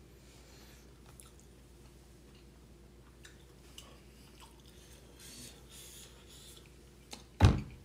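Faint chewing while eating, then a single loud thump near the end.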